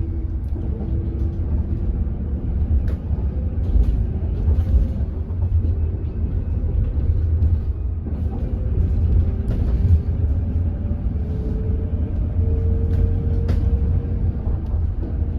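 Hydrogen fuel-cell city bus under way, heard from inside the cabin: a heavy steady rumble with the electric drive motor's whine gliding slowly up and down in pitch as the bus speeds up and slows, the motor noise that is called strange for this bus. A few sharp rattles and clicks come through now and then.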